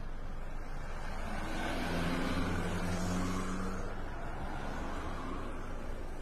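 Road traffic hum, with one car's engine passing closer, louder from about two seconds in and easing off after about four seconds.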